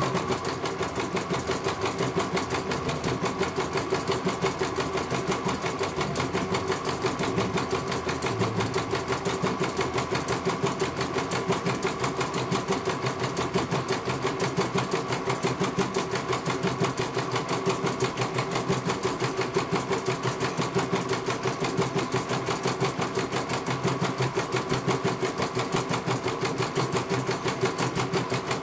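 CNY computerized embroidery machine stitching out a design: the needle bar runs a fast, even rhythm of stitches as the hoop carriage moves the fabric.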